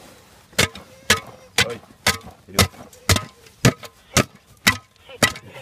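A long-handled digging tool chopping down into packed earth in steady strokes, about two a second, some ten blows in all starting about half a second in.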